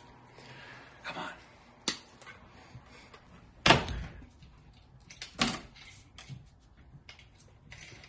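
Bosch BCC100 plastic thermostat being pressed onto its wall base plate: several sharp plastic clicks and knocks, the loudest about halfway through.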